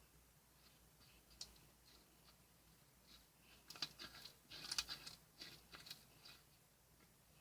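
Near silence, with faint scattered clicks and rustles in the second half.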